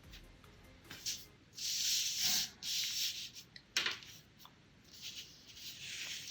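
Watercolor paintbrush scrubbing in a few short hissing strokes, with one sharp click a little past the middle.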